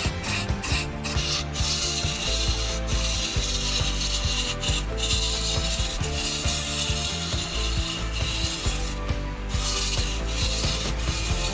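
A wood lathe runs while a hand-held turning tool cuts a spinning wooden blank, making a continuous rough scraping as shavings fly off. The steady hum of the belt-driven electric motor sits underneath. The cutting noise drops out briefly a few times, longest a bit after nine seconds in.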